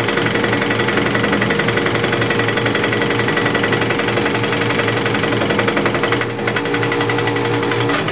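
South Bend 10K lathe running a fly cutter through an aluminum bar, the interrupted cut making a fast, steady hammering over the whine of the motor and gears as the dovetail bevel is milled. One steady tone in the whine drops out near the end.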